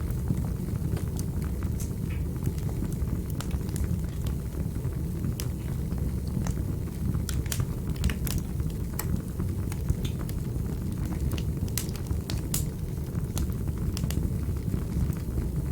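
Fireplace fire burning with a steady low rumble of flames and irregular sharp crackles and pops.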